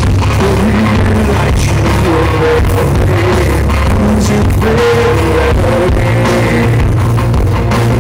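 Live rock band with a male lead singer singing, loud and heavily distorted in an audience recording made close to the stage.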